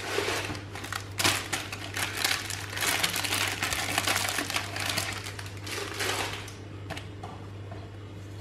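Clear plastic bag crinkling and rustling as papers are slid out of it, a dense crackle that dies down about six and a half seconds in.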